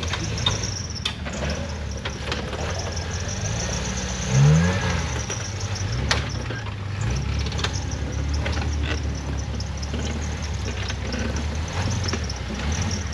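Off-road vehicle engine running at low revs as it crawls over rocks, with a short rev about four seconds in. Several sharp knocks come through.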